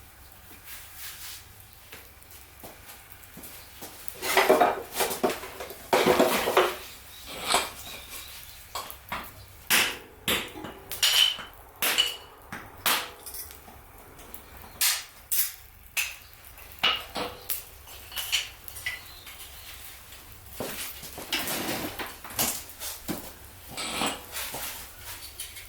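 Irregular clinks and knocks that sound like metal being handled, with two longer rustling or scraping stretches: one about four seconds in and one near the end.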